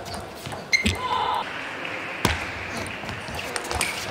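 Celluloid-type table tennis ball knocking off rubber-faced bats and the table in a rally: a handful of sharp, separate clicks, the loudest just under a second in and a little past two seconds in. A short voice is heard about a second in.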